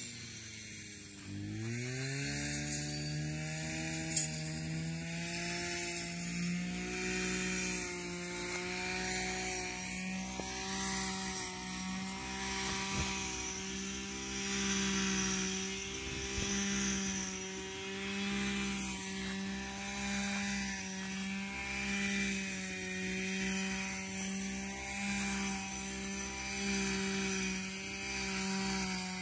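Small engine running at high speed. About a second in, its pitch drops sharply and climbs back, then holds steady with a slight pulsing.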